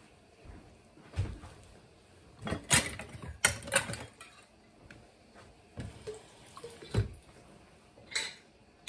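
Scattered knocks and clinks of glass canning jars and their metal lids and rings being handled on a kitchen counter, with a few duller thumps among them.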